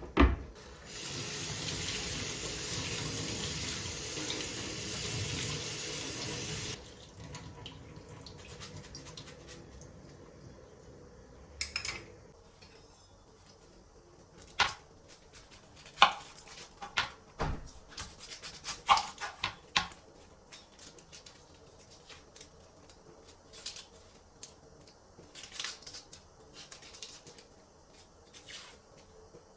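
A tap runs into a sink for about six seconds and is shut off. After it comes a scatter of light clinks and knocks.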